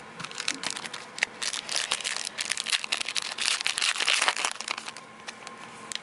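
Plastic wrapper of a baseball card pack crackling as it is torn open by hand. The crackles come thick and fast, build through the middle and stop about five seconds in.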